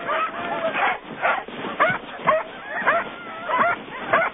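A pack of sled dogs barking and yipping, many short yelps overlapping one another.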